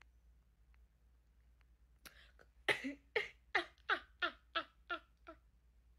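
A woman laughing: a run of about eight quick bursts of laughter starting about two seconds in, roughly three a second.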